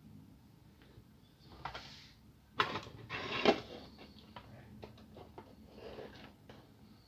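Plastic clicks, taps and scraping of a laptop keyboard being pried out of its frame and handled. Two louder scraping rattles come about two and three seconds in, followed by scattered small clicks.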